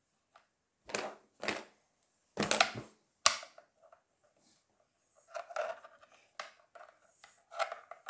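Wooden toy fish pieces clacking and knocking against a wooden game board as they are set into its slots: a string of irregular sharp taps, louder in the first few seconds and softer later.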